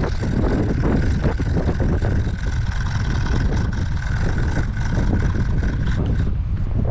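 A motor running steadily: a low rumble with a thin high whine that stops near the end.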